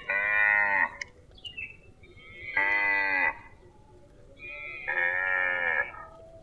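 Cow mooing three times, each call short, under a second long, about two seconds apart.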